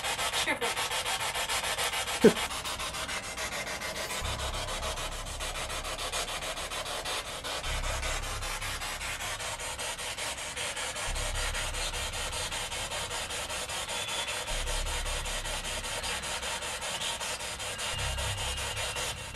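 Spirit box radio scanner sweeping through stations: a steady, rapidly chopping hiss of static from its small speaker, thin with little low end, with one sharp blip about two seconds in.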